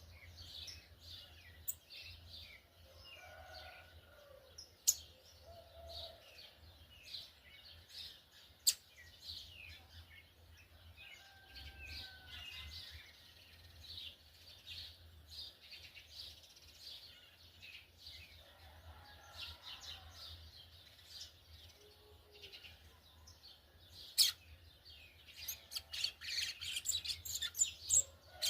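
A brown-plumaged yellow-bellied seedeater (coleiro baiano) sings a rapid twittering song of short high chirps. The chirps run steadily and grow denser and louder near the end, with a few sharp clicks in between.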